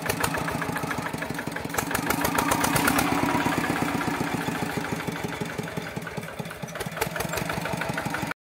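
Yanmar 8 hp single-cylinder diesel engine of a converted ride-on tractor running under load as it climbs over a mound of soil, with a steady, rapid firing beat. It grows a little louder about two seconds in and eases off toward the end.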